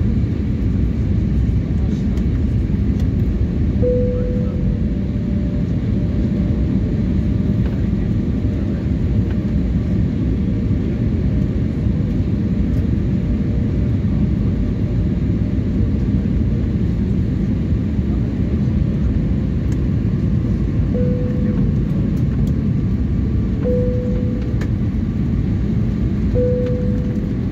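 Steady jet engine and airflow noise inside an airliner cabin during descent. A few brief, faint higher tones come through it, one about four seconds in and several in the last seven seconds.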